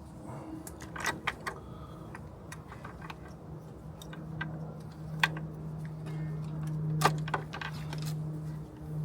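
Light metallic clicks and clinks, about five of them, over a steady low hum that grows louder a few seconds in.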